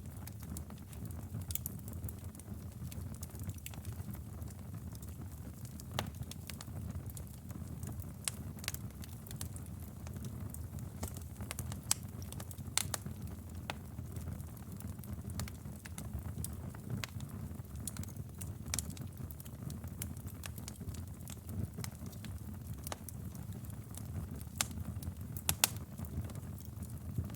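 Wood fire burning in a fireplace: a steady low rumble of flames with frequent irregular crackles and pops, a few of them sharper and louder.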